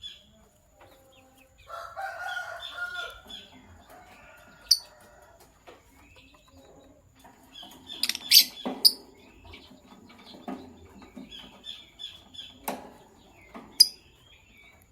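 Sky blue opaline and green opaline lovebirds chirping and chattering, with short repeated chirps and a few loud, piercing shrieks about five, eight and fourteen seconds in. A couple of sharp knocks come around nine and thirteen seconds.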